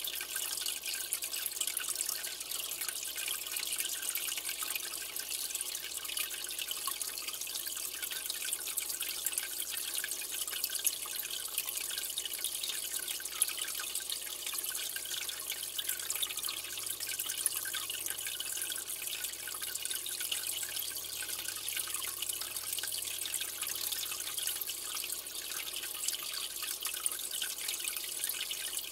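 Steady trickling and splashing of aquarium water, full of small drips and bubble pops, as water returns to the tank's surface.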